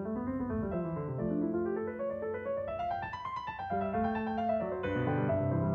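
Background piano music, a melody with a run of notes climbing in the middle.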